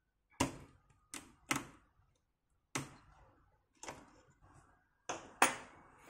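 Sharp clicks and taps, about seven spread unevenly with the loudest near the end, from a small screwdriver levering a 68000 CPU chip out of its socket on an Amiga 500 Plus motherboard until it comes free.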